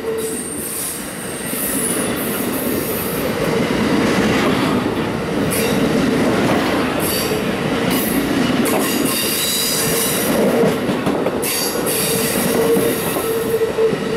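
Amtrak Superliner bi-level passenger cars passing close by: a loud, steady rush of steel wheels rolling on rail, with high-pitched wheel squeals coming and going.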